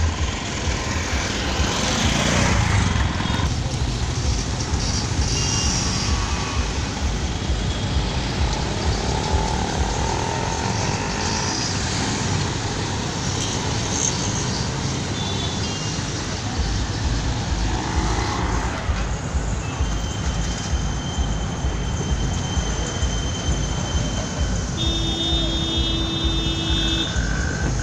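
Busy street traffic noise: vehicle engines running and passing with a constant low rumble. A held tone sounds for about two seconds near the end.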